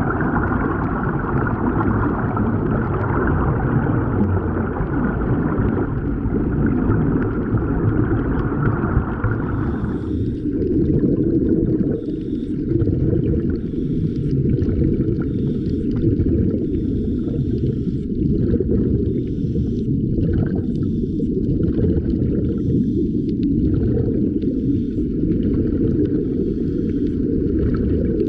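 Heard from underwater: a steady low rumble and gurgling of air bubbles streaming out of sea-walker diving helmets. A higher hissing band drops out about ten seconds in, after which the bubbling comes in irregular spurts.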